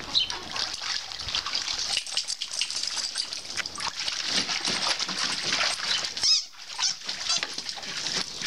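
Dog splashing and pawing the water of a plastic kiddie pool, then stepping out, with two short high squeaks near the end.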